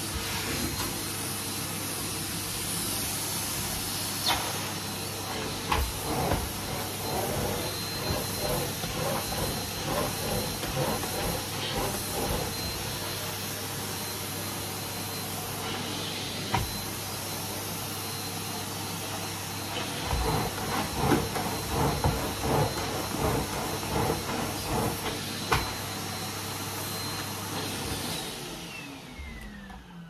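Numatic Henry cylinder vacuum cleaner running with a steady hiss and hum as its metal wand and floor tool are worked over carpet, with occasional knocks. Near the end the motor is switched off and winds down in a falling whine.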